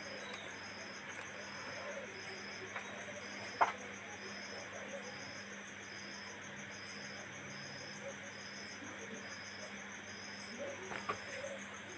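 Crickets chirping in an even, repeating rhythm, over a low steady hum. A single sharp click sounds about three and a half seconds in, with a few small handling knocks near the end.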